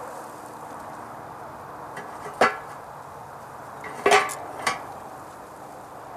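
The cast-iron door of an old coal stove being swung and knocked against the stove body, three metal clanks with a short ring; the second, about four seconds in, is the loudest. The door has no latch, so it knocks loosely.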